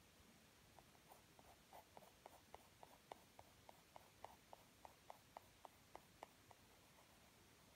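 Soft 8B Koh-i-Noor graphite pencil shading on drawing paper: faint, short, even strokes about three or four a second, starting about a second in and stopping near the end.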